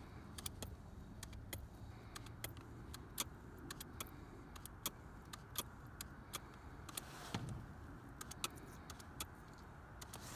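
Trigger spray bottle squirting soapy leak-detection solution onto brazed refrigerant joints at a reversing valve: a quick run of short, irregular squirts, heard over a low steady hum. This is a bubble leak check of the repair under nitrogen pressure.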